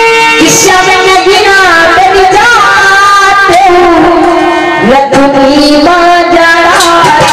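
A woman singing a song into a microphone over a loud PA, holding long notes that bend and waver.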